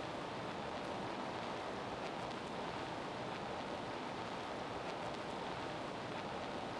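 Steady, even rushing noise with no distinct events, only a few faint ticks.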